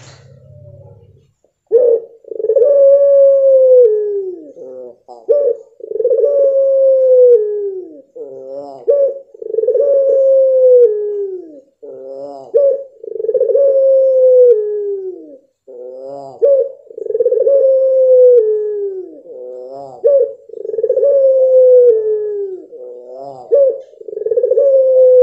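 Puter pelung dove cooing over and over, starting about a second and a half in. Each call is a short quavering note followed by a long drawn-out coo of about two seconds that falls in pitch at the end, repeated every three and a half to four seconds, some seven times.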